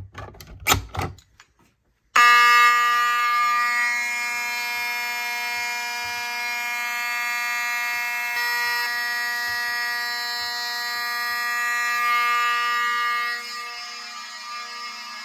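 Fire alarm horn strobes, including 7002T horns, start suddenly about two seconds in after a few knocks and sound a loud, steady, continuous horn tone. The sound drops somewhat in level near the end.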